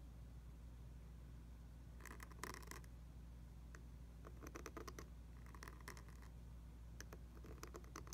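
Pointed dip-pen nib scratching faintly across paper in a few short strokes while a copperplate letter is written.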